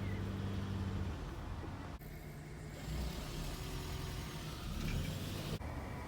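Car engine and road noise, a steady low hum. The sound changes abruptly about two seconds in and again near the end.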